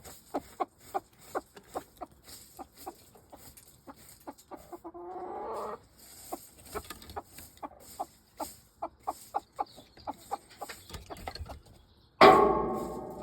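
Chicken clucking in short repeated notes, about three a second, with a longer drawn-out call about five seconds in. Near the end comes a sudden loud sound that rings on briefly.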